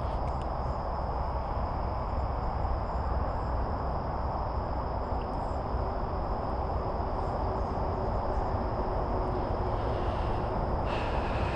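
Insects chirring in one steady high drone over a constant low rushing background noise.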